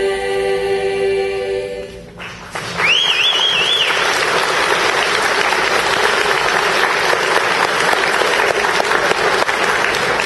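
A choir holds its final chord for about two seconds and cuts off, then the audience applauds. A wavering whistle from someone in the crowd rises above the clapping for about a second just after the applause begins.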